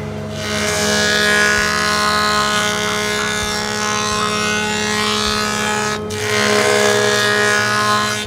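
Record Power PT107 planer-thicknesser running as a surface planer, its cutterhead cutting loudly as a board is pushed across it in two passes: a long one of about five seconds, a short lull, then a shorter second pass over the steady hum of the machine.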